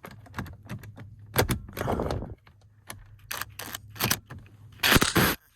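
Cordless impact driver with a T30 Torx bit, hammering in a few short bursts of rapid clicks to back out the steering-wheel airbag's retaining bolts.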